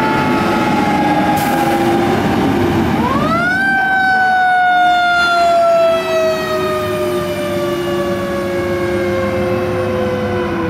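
Fire truck siren wailing as the apparatus drives past: a slowly falling tone that winds back up sharply about three seconds in, then falls slowly again. Heavy truck engine noise comes with it, loudest as the rescue truck passes close about six seconds in.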